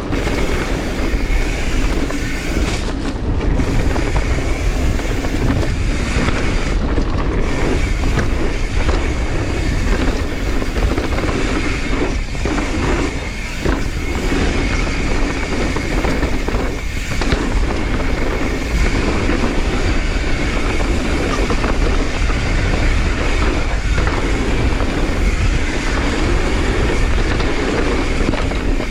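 Mountain bike riding fast down a dirt jump trail: steady tyre noise on the dirt and the constant rattle of the bike over rough ground.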